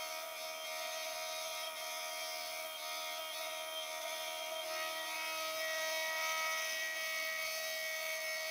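Milling machine running a steady whine as its end mill cuts a shoulder into the tang of a Damascus steel knife blade, throwing off steel chips.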